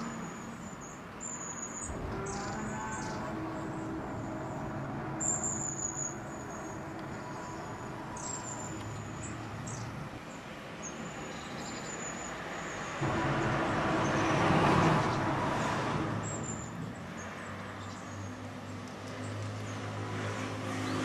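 A low droning hum made of several steady tones, with short high chirps from birds over it in the first half. Past the middle a louder rush of noise swells and fades, and near the end a deeper steady tone comes in.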